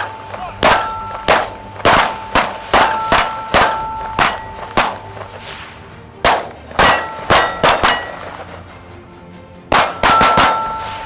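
Gunfire in three quick strings of shots: about ten, then about five, then about four near the end. Steel targets ring with a sustained clang after the hits.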